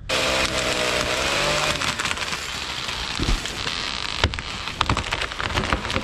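A chainsaw runs for the first couple of seconds, its pitch sagging, then several spruce and birch trees come down together, crashing through branches with a run of sharp cracks and snaps, the loudest about four seconds in.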